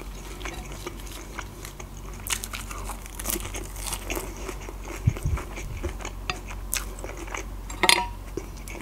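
Close-miked chewing of a meat cutlet topped with mashed potato: soft, wet mouth clicks and smacks, with a sharper click about eight seconds in.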